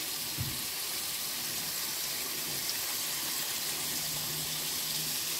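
Ground-beef patties frying in hot oil in a pan, giving a steady, even sizzle.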